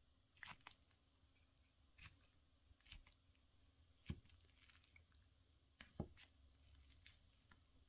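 Quiet eating sounds: a wooden spoon scooping octopus fried rice from a plastic tub, with scattered small clicks and two soft knocks about four and six seconds in.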